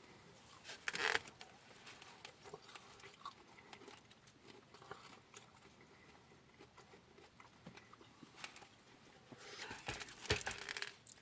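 Close-up eating sounds: quiet chewing with scattered small clicks and crunches, and louder bursts about a second in and again near the end.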